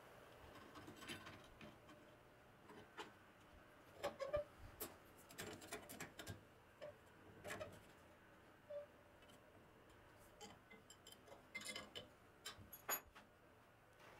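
Scattered light clicks and taps of steel parts being handled and fitted on a workbench, in otherwise quiet room tone.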